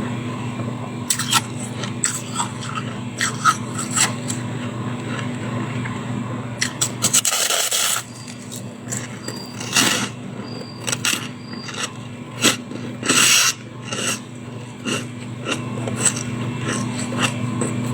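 Freezer frost being scraped loose: a run of short rasping scrapes, with a few longer, louder scrapes about seven, ten and thirteen seconds in.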